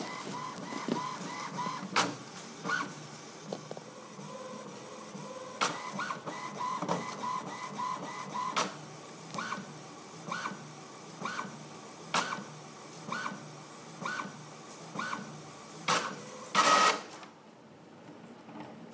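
HP Deskjet Ink Advantage 3545 inkjet printer printing the alignment page after a new ink cartridge is fitted. The print carriage shuttles across the page with a short whine about once a second, broken by sharp clicks as the paper advances. A louder whirr comes near the end, then the printer goes quiet.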